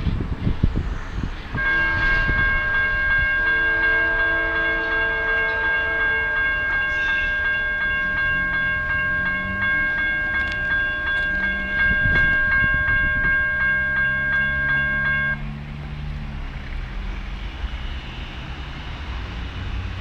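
A railroad grade-crossing warning bell rings with rapid, even strokes, starting about a second and a half in and cutting off abruptly past the middle. Under it, a distant locomotive horn sounds in several blasts.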